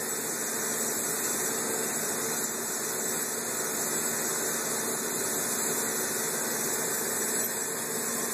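A steady hissing noise with a faint low hum under it.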